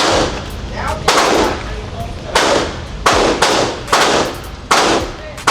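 Gunfire at an indoor shooting range: about eight single shots at uneven intervals, each with a short echo off the range walls.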